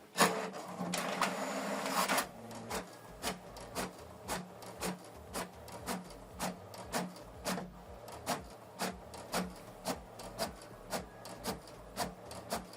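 HP Deskjet 4310 inkjet printer printing: about two seconds of steady whirring as the sheet feeds in, then short regular clicks about twice a second as the print head passes back and forth.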